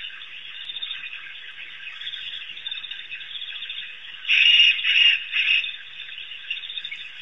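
A steady chorus of high chirping calls, with a louder run of three chirping bursts about four to five and a half seconds in.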